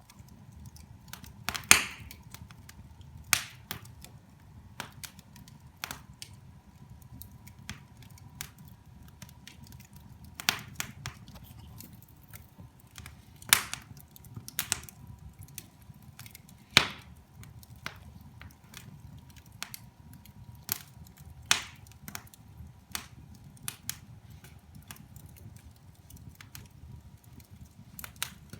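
Wood fire burning in a fireplace, crackling with irregular sharp pops (about seven loud ones scattered through) over a steady low rumble of the flames.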